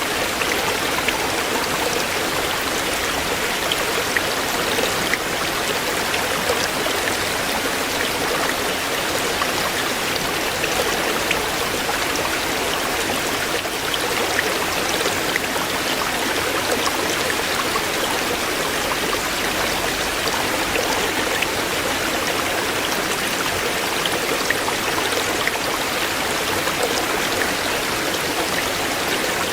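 Shallow stream flowing over stones: a steady rush of water with fine splashing and trickling.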